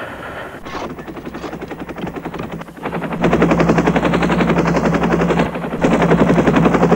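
Helicopter rotor blades chopping in a fast, steady beat, fainter at first and louder from about three seconds in.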